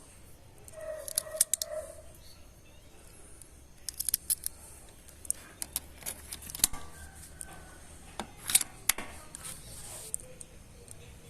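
Irregular clusters of sharp clicks and small metallic clatter from a rifle and its scope being handled and worked during scope adjustment.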